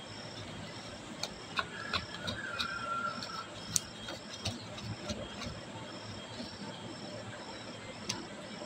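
Light clicks and taps of plastic and metal parts being handled as a hand turns and seats the coupling on a juicer-blender's motor shaft. Behind them a cricket chirps steadily, about twice a second.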